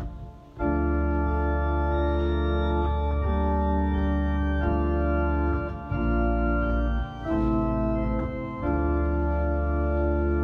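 Organ playing slow, sustained chords over deep held bass notes. It comes in about half a second in and changes chord every one to three seconds.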